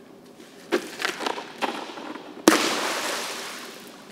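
A thrown hard life ring buoy smacks onto the pool water about two and a half seconds in, a single sudden splash whose echo fades over a second or so in the tiled pool hall, after a few shorter, quieter noises.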